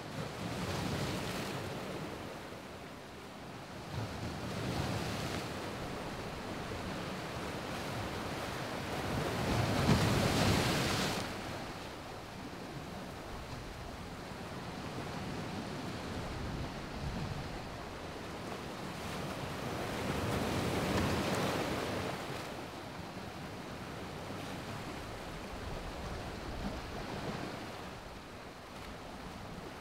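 Ocean surf: waves breaking and washing in, swelling and fading every few seconds, with the biggest surge about ten seconds in and another around twenty seconds.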